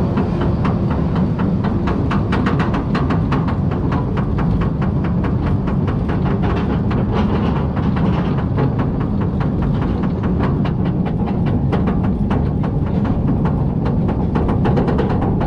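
B&M roller coaster train climbing a chain lift hill: the lift chain gives a steady low rumble, with rapid, evenly spaced clicks of the anti-rollback ratchet running all through the climb.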